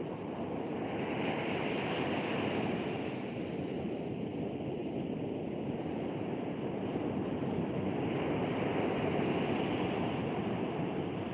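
Sea surf on a beach: a steady rush of waves that swells twice, with some wind buffeting the phone microphone.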